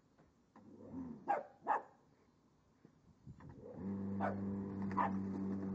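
Shih Tzu–terrier cross puppy barking in short sharp barks, a pair early on and two more later, at a corded electric rotary lawn mower. A little over halfway through the mower's electric motor starts and runs with a steady hum under the barks.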